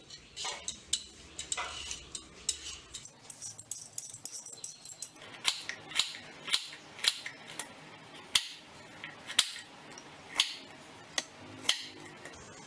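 Kitchen knife peeling sweet potatoes with soft scraping and small clicks, then, about five seconds in, chopping the peeled sweet potato on a wooden cutting board: about ten sharp knocks of the blade on the board, one every half-second to second.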